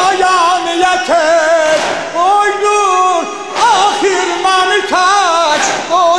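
An elderly man's solo voice singing a noha, a Shi'a mourning lament, into a microphone: several long held phrases that waver and slide in pitch, with short breaks between them.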